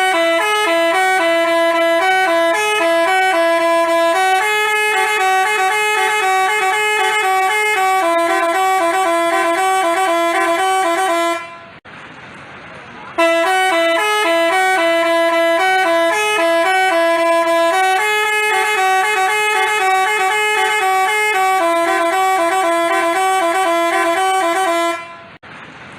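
Basuri telolet bus horn playing its multi-note tune, a loud honking melody of quick alternating notes. It breaks off after about eleven seconds and plays the same tune again, stopping just before the end.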